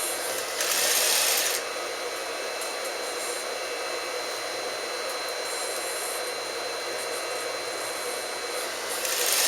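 Sewing machine at work: a steady motor hum, with two short bursts of stitching about a second long, one shortly after the start and one near the end.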